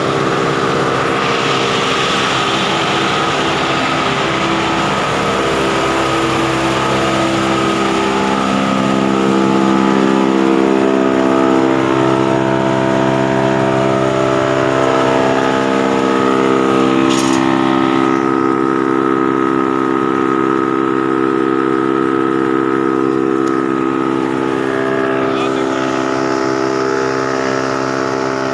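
Heavy-duty wood chipper with a metal conveyor running steadily, a constant mechanical hum with several steady pitches, with one sharp knock about seventeen seconds in.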